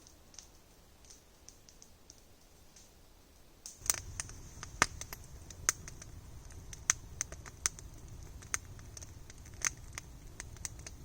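Campfire crackling with irregular sharp pops and snaps, growing louder about four seconds in, when a low rumble joins it.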